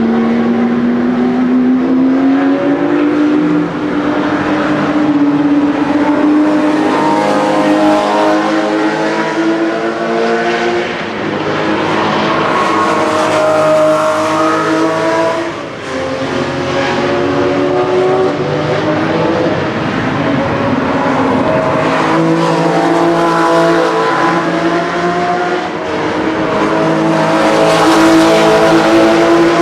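Porsche sports car engine running hard at high revs on a racetrack, its pitch climbing slowly and dropping back about four times as it shifts through the gears.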